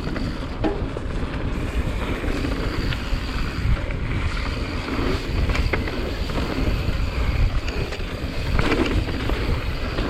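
Wind buffeting the microphone during a fast mountain-bike run, over tyres rolling on a dirt trail, with scattered short clicks and knocks from the bike.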